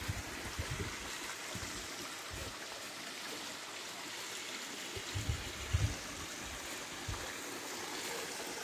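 Stream water running steadily, with a few soft low bumps about five to six seconds in.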